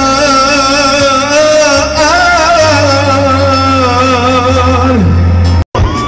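Live raï singing through a PA: a male singer holds one long wavering note over a steady band bass line. The note falls away about five seconds in, and the sound cuts out for an instant shortly after.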